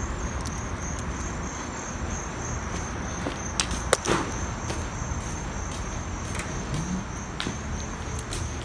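Insects trilling in an even, pulsing high pitch, over a steady low rumble. Two sharp clicks come about four seconds in.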